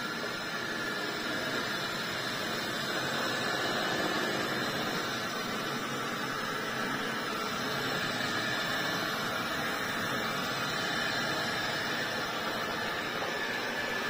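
ILIFE T20s robot vacuum running: a steady whirring hiss from its suction fan and brushes as it drives slowly along a tiled floor.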